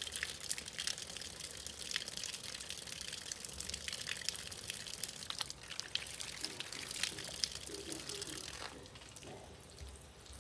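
Water running from a plastic garden tap, splashing over a hand rinsing under the stream. The flow dies away near the end as the tap is turned off.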